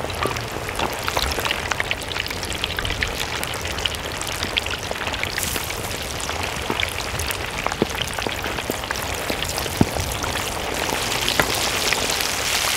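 Chicken legs deep-frying in hot oil: a steady sizzle with frequent small crackles and pops.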